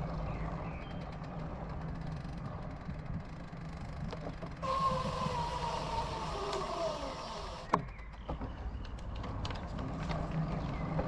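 Bicycle riding noise: a steady low rumble from the tyres on tarmac with scattered rattles and clicks. About halfway through, a hiss and a whine set in, the whine falling slowly in pitch for about three seconds and ending at a sharp click.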